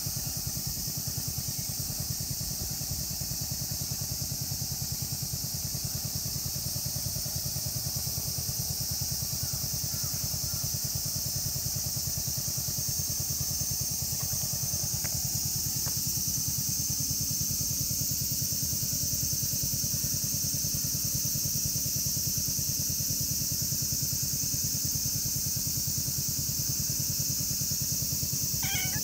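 Steady, high-pitched chorus of cicadas, the loudest sound throughout, over a low steady throb. A short pitched call sounds near the end.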